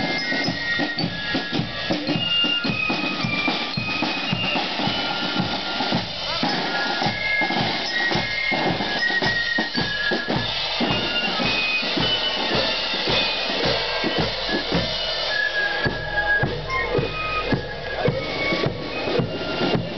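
Marching fife-and-drum corps playing a march as it passes close by: a shrill fife melody over a steady beat of snare and bass drums.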